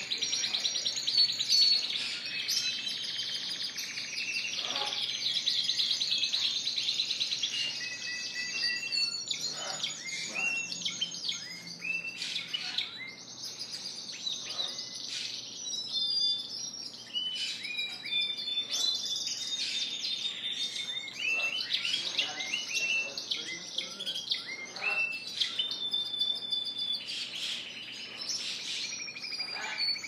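Several domestic canaries singing over one another without pause: long, rapid trills and rolling runs of high notes.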